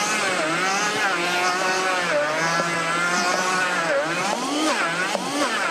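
Blender motor running at high speed, grinding whole peanuts into a thick peanut butter; its pitch sags and recovers several times as the paste loads the motor.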